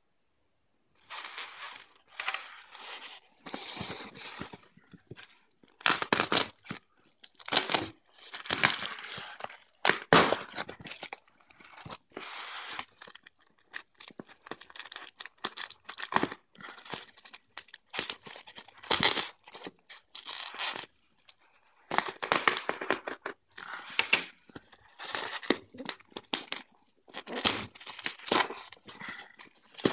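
Plastic bubble wrap around a parcel crinkling and tearing as hands handle it and pull it open, in irregular bursts with a few sharper crackles, starting about a second in.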